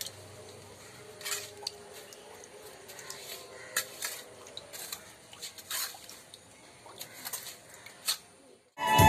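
Scattered quiet scrapes, crunches and sharp ticks of hands and a stick working garden soil while planting a tapioca cutting. Music with a violin comes in suddenly at the very end.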